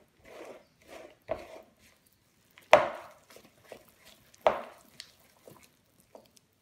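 Hands mixing and gathering a soft butter-and-flour dough in a mixing bowl: irregular squishing with a few sharp knocks, the loudest about three and four and a half seconds in.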